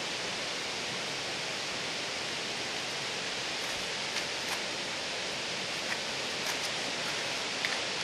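Steady wash of rushing, falling water, with a few faint light ticks in the second half.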